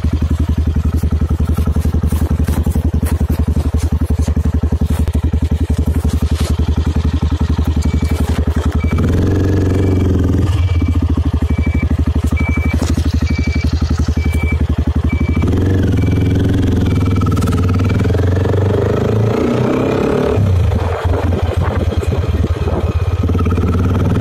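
Straight-piped single-cylinder engine of a 1996 Aprilia Pegaso 650 running, its open exhaust giving a rapid, loud pulsing. The note rises and thickens a few times, as if the throttle is blipped or the bike pulls away, and through the middle a short high beep repeats steadily.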